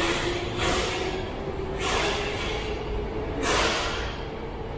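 Tokyo Metro Marunouchi Line train pulling away down the tunnel: a motor whine rising slowly in pitch, with rushes of wheel-and-rail noise swelling and fading every second or so.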